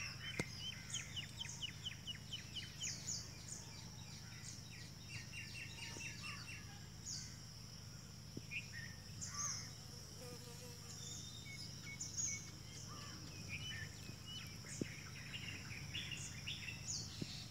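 Small birds chirping outdoors in quick runs of short notes, over a steady high-pitched insect drone and a low background hum.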